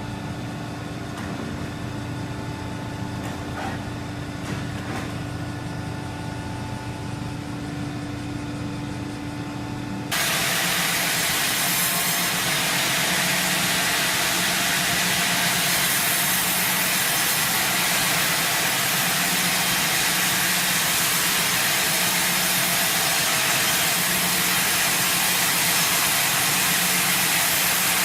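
Machinery running with a steady hum. About ten seconds in it switches abruptly to a louder, steady hissing machine noise.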